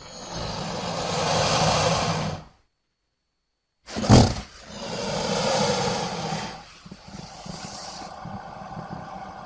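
Crocodilian vocalizing: two long, breathy growling calls with a second of silence between them. The second opens with a sharp burst and trails off into a lower, quieter rumble.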